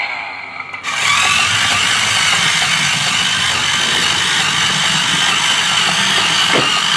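Toy RC Polaris RZR 1000 buggy's electric drive motor and gears whining steadily as it drives across a hardwood floor, starting suddenly about a second in.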